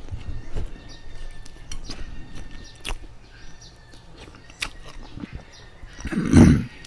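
Close-miked eating sounds: chewing and wet mouth clicks as noodles, bread and broth are eaten, then one louder, breathy mouth noise lasting about half a second, about six seconds in.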